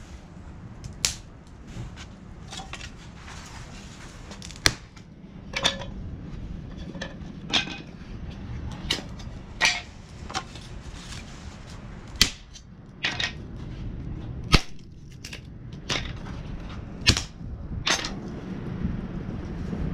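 Stainless steel fire pit parts knocking and clinking as they are handled, about fifteen sharp metallic knocks at uneven intervals, some ringing briefly.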